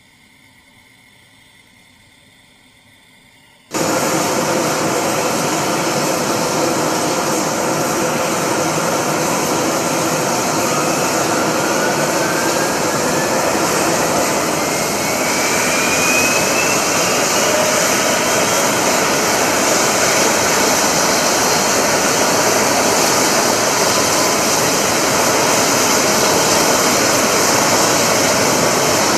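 LCAC hovercraft's gas turbines and lift fans running, a loud steady roar that starts abruptly about four seconds in. From about eleven seconds a whine climbs in pitch as the engines spool up and the craft's skirt inflates onto its air cushion.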